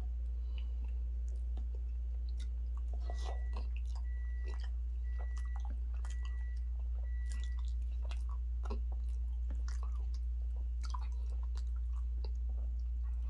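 Close-up chewing and mouth sounds of a person eating fufu and turkey stew: scattered wet smacks and small clicks, over a steady low hum. About three seconds in come five short high beeps, roughly one a second.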